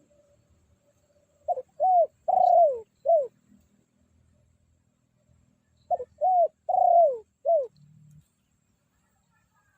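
Spotted dove (tekukur) cooing loudly: two four-note phrases a few seconds apart, the third note of each longer and falling in pitch. It is a decoy bird calling to challenge a rival dove.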